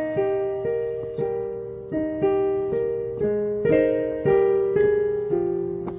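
Piano music: a slow melody over chords, each note struck and then fading.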